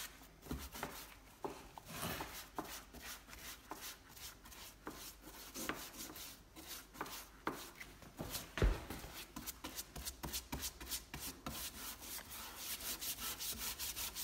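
Copper-bristle detail brush scrubbing wet, weathered wood in short back-and-forth strokes, lifting the grey surface and goo after a grain enhancer treatment; the strokes quicken to about four a second near the end. A single knock about two-thirds of the way through.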